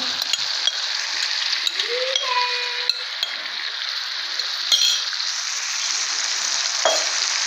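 Marinated liver pieces sizzling in hot oil and masala in a frying pan, with a few sharp clinks of a bowl or utensil against the pan, the loudest about five seconds in.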